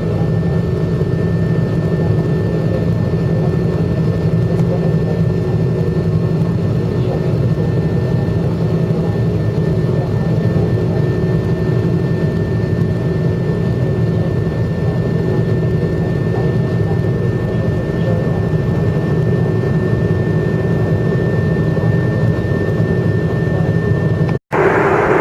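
Steady cabin noise of a jet airliner under way: a constant engine and airflow rumble with a thin steady whine above it. Near the end it cuts out for an instant and comes back as a different, louder hum.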